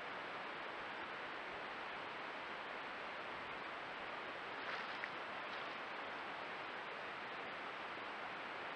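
Steady hiss from a trail camera's microphone, with a brief slosh of water about five seconds in as a black bear wades and settles in a shallow pond.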